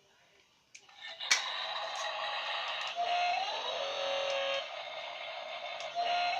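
Toy RC construction crane truck switching on with a click about a second in, then running with a steady mechanical-electronic noise and a short tone pattern, a held note, a quick rise, then a lower note, that repeats about every three seconds.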